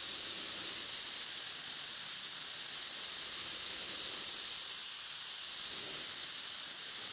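Compressed air hissing steadily from a gravity-feed spray gun, blown over a freshly sprayed coat of primer to flash it off until it goes matte.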